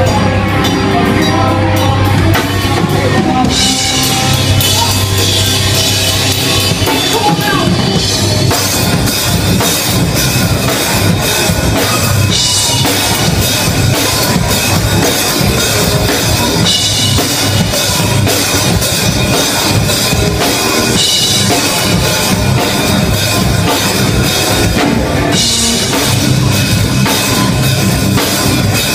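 Rock band playing live at full volume, drum kit to the fore: held notes at first, then the drums come in hard about four seconds in and turn fast and dense from about eight seconds on.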